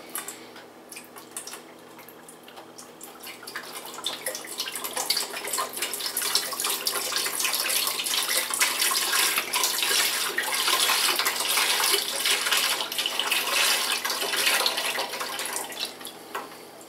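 Vegetable broth pouring from a carton into a large stockpot, a splashing stream of liquid that grows louder a few seconds in and tapers off near the end.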